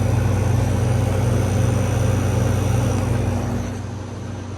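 Window air conditioner running with its compressor on: a steady low hum under the rush of the fan's air, easing a little near the end.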